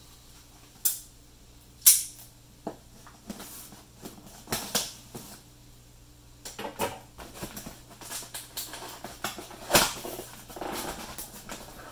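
A cardboard box being opened with a folding knife: scattered sharp clicks and knocks of handling, then scraping and slitting sounds as the blade cuts the box's packing tape. A sharp knock comes near the end.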